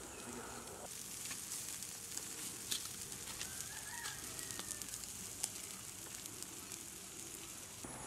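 Open charcoal fire crackling and sizzling under whole chickens roasting on skewers: a steady hiss with scattered sharp pops.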